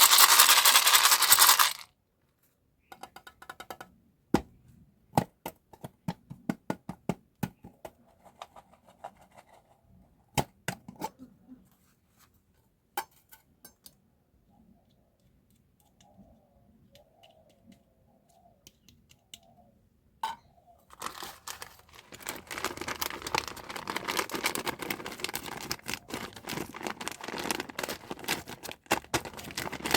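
Glossy candy packaging being unwrapped close to the microphone. A loud burst of crinkling wrapping comes first, then scattered sharp clicks and taps with quiet gaps, then steady crinkling and tearing of the wrapping from about two-thirds of the way in.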